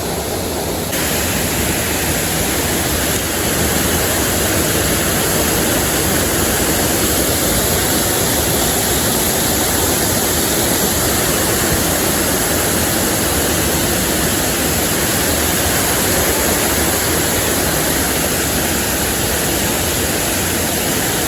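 Stream water rushing steadily over rocks, close by.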